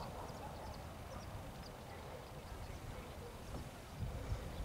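Wind rumbling on the microphone on an open sandy beach, with a couple of heavier low bumps about four seconds in. Faint short high bird chirps come and go over it.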